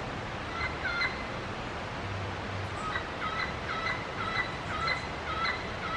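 Large jungle parrots giving short, soft repeated calls: two about a second in, then a run of about six at roughly two a second. A steady background hiss runs underneath.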